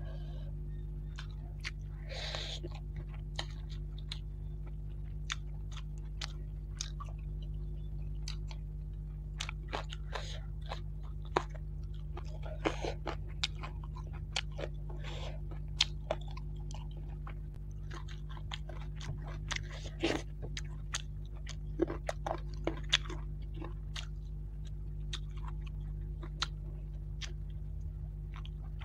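Close-up mouth sounds of eating fried fish and rice by hand: chewing, with many short wet clicks and small crunches scattered irregularly, over a steady low hum.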